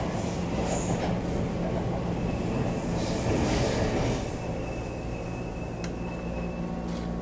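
Running noise heard inside a Taiwan Railway EMU700 electric multiple-unit car, with another train rushing past on the next track. From about four seconds in it turns quieter as the train slows almost to a stop, and a thin high brake squeal comes in.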